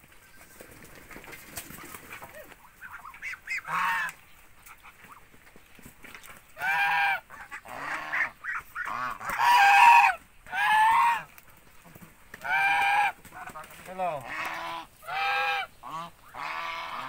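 Ducks calling loudly in a run of harsh, honk-like quacks. One call comes about four seconds in, then from about six seconds on the calls come thick and fast, one after another, as the flock is disturbed by a man running among them.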